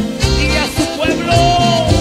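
Band instrumental break: saxophones play a melody of held notes and short phrases over bass and a steady beat of drums.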